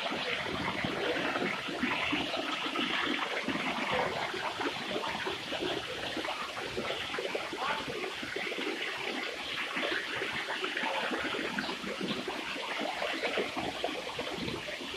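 Steady rushing and splashing of water from a small waterfall.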